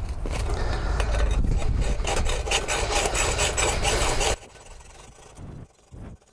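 Hacksaw cutting through a thick aluminium lens-mount adapter in rapid rasping back-and-forth strokes. The sawing stops abruptly about four seconds in.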